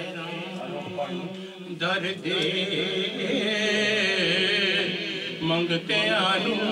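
A man's voice chanting a devotional poem (naat) in a sung, reciting style, drawing out long wavering notes, with two short breaks between phrases.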